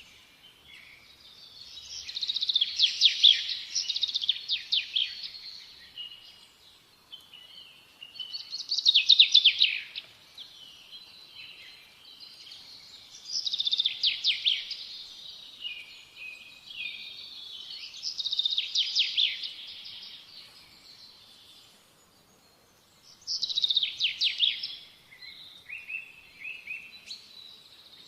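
A small songbird singing phrases of rapid, high trills, one phrase every four or five seconds, with quieter twittering in the gaps.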